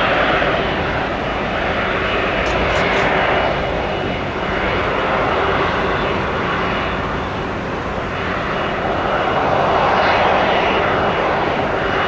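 Airbus A330-300 jet airliner's twin engines running, a continuous rushing jet noise that swells and eases slowly.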